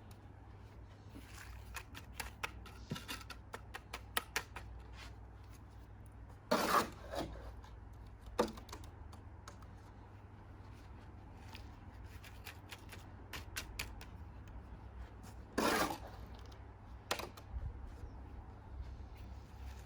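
Cement being packed into a broken bird bath by hand: scattered small clicks and taps with two short, louder scrapes, about a third of the way in and again near the end, over a low steady hum.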